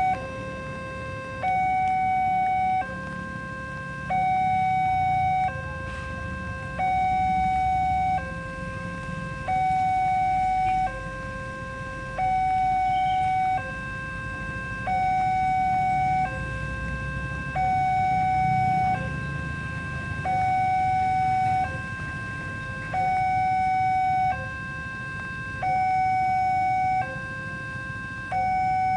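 Railway level-crossing warning alarm sounding an electronic two-tone hi-lo signal, a higher and a lower tone alternating about every one and a third seconds, over a low rumble.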